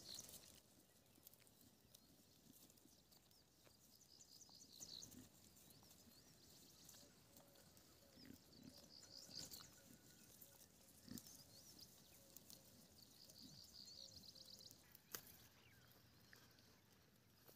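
Faint sounds of Osmanabadi goats grazing: leafy plants being torn and chewed, with a few soft knocks. Repeated high chirping goes on above it.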